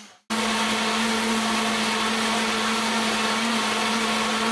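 Countertop blender motor running steadily at speed, blending soaked sea moss and water into gel. It cuts in abruptly after a brief moment of silence, then holds an even, unchanging hum.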